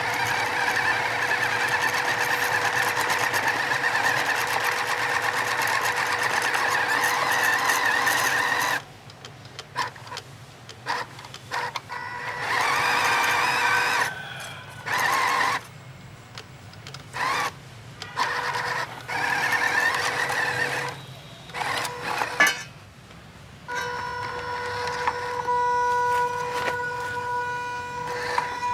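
Small electric motor and gears of a 4x4 RC car whirring: running steadily for the first nine seconds or so, then in short stop-start bursts as the throttle is blipped, then steadier again near the end.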